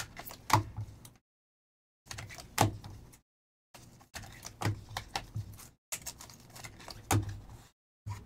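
Trading cards being handled in rigid clear plastic toploaders: a string of sharp plastic clicks and taps, the cards and holders knocked and set down on a tabletop, with a few brief moments of dead silence between.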